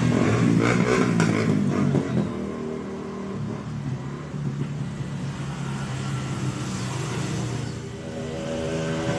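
Petrol engine running, revved and louder for the first couple of seconds, then settling to a steady run.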